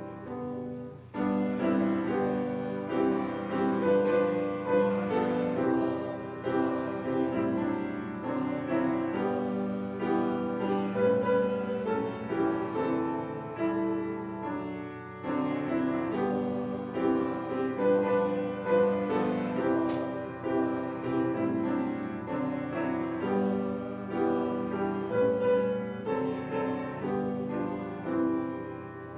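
Grand piano playing a slow hymn tune in chords, phrase by phrase, with a short pause about a second in and another about halfway through.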